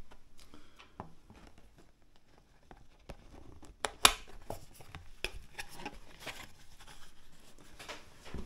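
Hands handling and fitting small parts together: scattered light clicks and rustling, with one sharp click about four seconds in.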